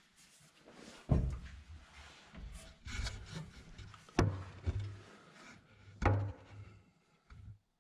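Rubbing and scuffing from someone moving about in a stripped-out tractor cab and handling the camera, broken by three sharp knocks: about a second in, about four seconds in and about six seconds in.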